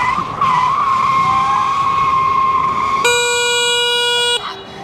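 Solar Eclipse 2.0 electric dirt bike's motor whining at a steady pitch over a rush of wind noise while riding at speed. About three seconds in, a horn sounds with one flat, steady note for about a second and a half.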